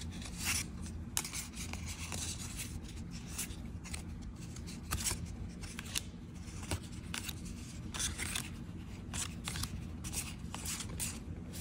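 Magic: The Gathering cards, many of them foil, slid and flicked one at a time through a handful: irregular soft clicks and rustles of stiff card stock rubbing and snapping against card.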